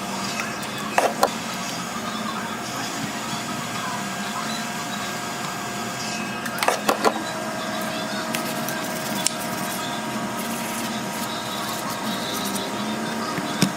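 A steady machine hum with a few fixed tones, broken by sharp clicks and taps: a pair about a second in, a quick cluster of three or four around the middle, and single ones later, as of small tools and phone parts being handled on a repair bench.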